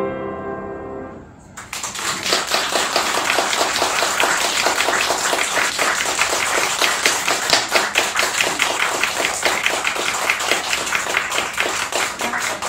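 A woman's final sung note and its accompaniment die away about a second in, then a small audience breaks into applause and keeps clapping.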